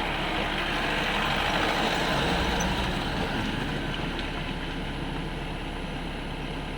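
Off-road Mahindra Thar jeep engines running steadily as the jeeps climb a slippery, winding dirt track.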